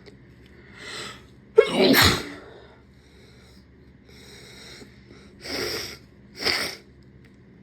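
A person sneezes once, loudly and suddenly, after a quick in-breath, the sneeze induced by tickling the nose with a rolled-up tissue. Faint breathing follows, then two short sniffs near the end.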